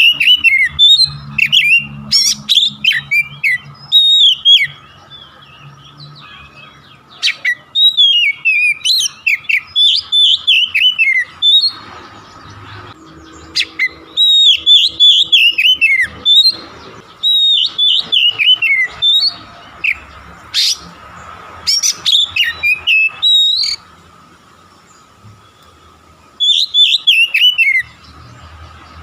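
Oriental magpie-robin singing loud, rapid phrases of sharp, bending whistles and chattering notes, in bursts a few seconds long with short pauses between them. It is a lure recording meant to set a caged magpie-robin singing. A faint steady hum sits underneath.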